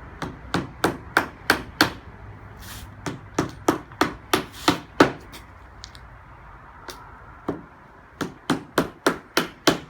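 A hammer drives poly-headed nails through PVC cladding into a timber kennel-panel frame. The strikes come in quick runs of about three a second, with a pause of a second or two between runs.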